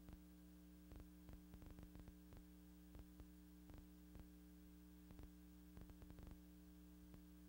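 Near silence: a steady low hum with faint, irregular clicks and crackles. No machine sound from the lathe is heard.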